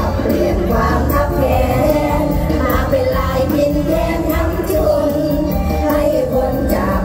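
A woman singing a mor lam song live into a microphone over loud amplified band accompaniment with heavy bass.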